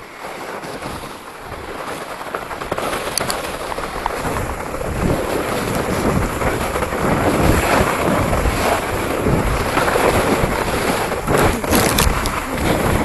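A sled sliding downhill on snow: a steady hiss of snow scraping under the sled with wind rushing over the microphone, growing louder as it picks up speed.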